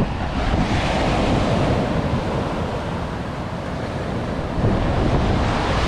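Ocean surf breaking and washing up the sand, with strong wind buffeting the microphone in a low rumble.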